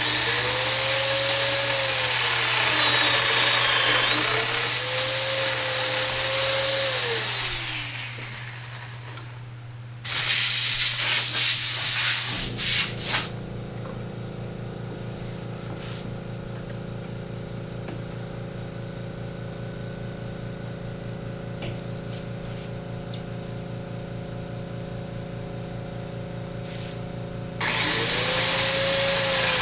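Electric woodworking power tool running, its motor whine rising and falling in pitch twice. About ten seconds in comes a loud harsh noise lasting a few seconds, then a steady low hum, and the whine starts again near the end.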